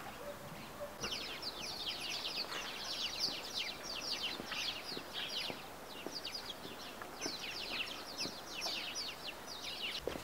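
Small birds chirping: quick runs of short, high, falling notes in bursts of about a second each, starting about a second in.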